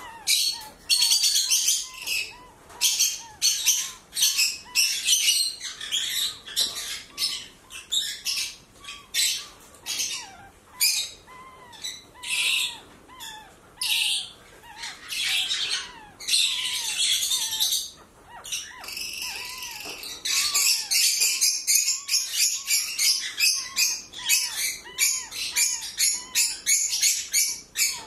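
High-pitched chirping and squeaking from a green-cheeked conure and newborn puppies: quick chirps several a second in runs with brief pauses, over softer squeaks that rise and fall in pitch.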